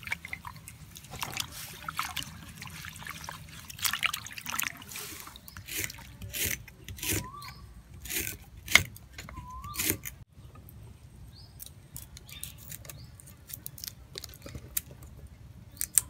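Hands swishing and rubbing leafy greens in a basin of water, then a kitchen knife chopping lemongrass on a wooden block, a run of separate chopping knocks about halfway through.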